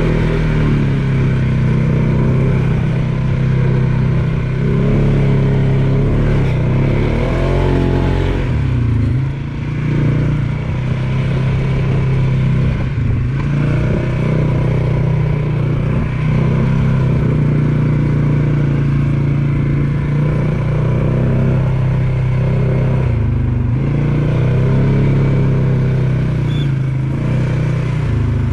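ATV engine running as the machine is ridden along a trail, its pitch rising and falling with the throttle and dropping briefly twice as the rider eases off.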